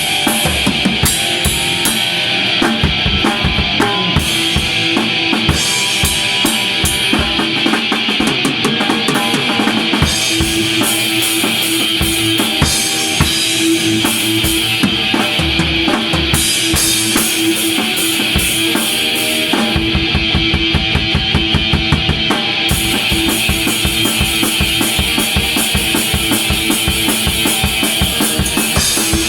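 Heavy-metal drum kit played hard, with bass drum, snare and cymbals over held tones from other instruments. About two-thirds of the way in the bass drum settles into a fast, even run of strokes.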